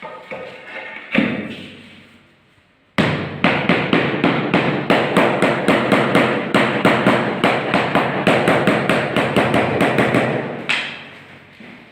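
A marble floor tile being tapped down to bed it into the mortar. A few scattered knocks come first, then a fast, even run of blows, about five a second, lasting some seven seconds.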